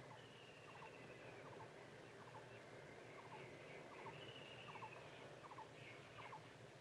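Faint bird calls in the open: a short double chirp repeated about every three quarters of a second, with two longer falling whistles, one near the start and one about four seconds in.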